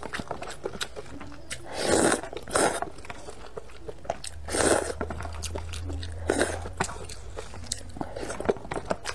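A person slurping spicy vermicelli noodles from broth and chewing them: four loud slurps, with wet clicking and smacking of chewing between.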